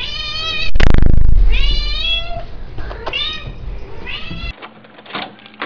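House cat meowing repeatedly: four drawn-out meows that bend up and down in pitch. A loud low bump about a second in, and a few short knocks near the end.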